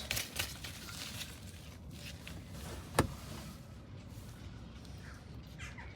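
Faint handling noises from work in an engine bay, a few light clicks and one sharp metallic click about halfway through.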